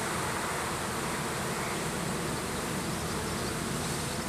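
Steady buzzing hum of many Italian honeybees flying around an open hive, just hived from a package and still unsettled.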